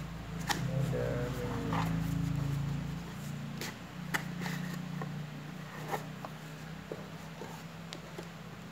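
A small thin-cardboard box being handled and opened by hand: scattered taps, scrapes and clicks as the sleeve slides off and the lid flap is lifted, over a steady low hum.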